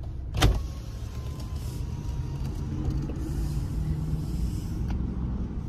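Car engine and road rumble heard from inside the cabin as the car moves slowly forward, swelling a little past the middle. A single sharp knock about half a second in.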